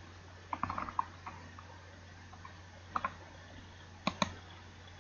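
Computer mouse clicks, over a faint low hum. There is a quick run of clicks about half a second in, single clicks near one and three seconds, and a double click near four seconds.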